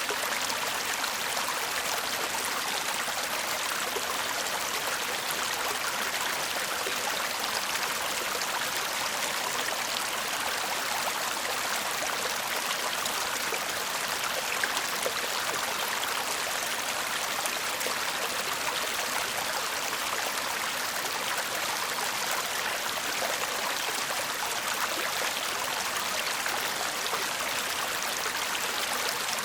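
Shallow stream babbling over stones: a steady, even rush of water with small splashes and trickles.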